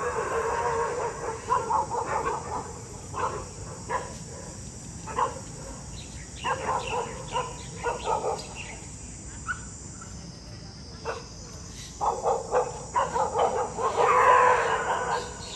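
Stray dogs barking in three runs of quick barks, with single barks in between. These are skittish dogs barking at the people trying to catch them.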